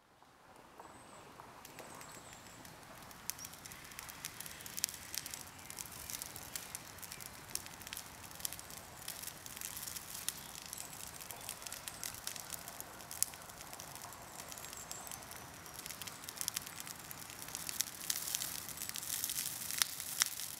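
Brush pile burning, crackling and popping with irregular sharp snaps over a steady hiss, growing louder toward the end.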